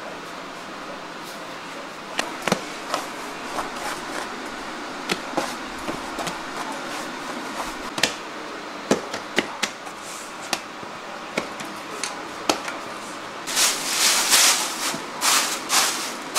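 Dough being handled on a metal baking tray: scattered knocks and slaps of hands, dough and tray over a steady background noise. Near the end, a loud crinkling rustle of a plastic sheet being spread over the dough.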